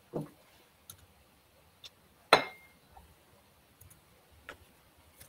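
Quiet room tone broken by a few faint, scattered clicks and one sharper knock a little over two seconds in.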